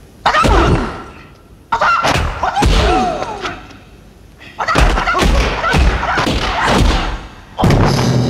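Kung fu fight-scene sound effects: four flurries of punch and kick thuds, the last as a fighter goes down to the floor. Music comes in near the end.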